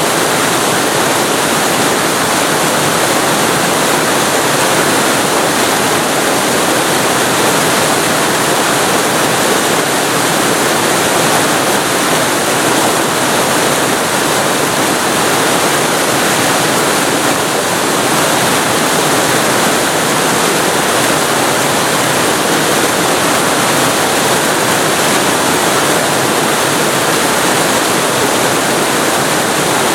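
Waterfall recorded very close to the falling water: a loud, steady, unbroken rush of water.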